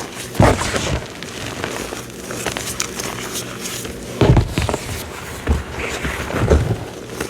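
Reformed cornstarch being squeezed and crushed, giving squeaky, crackly crunches: one near the start, then three more in the second half.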